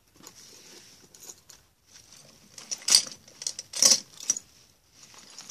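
Metal gymnastics medals clinking and jangling against one another as their tangled ribbons are pulled apart, with two louder bursts of clinks about three and four seconds in.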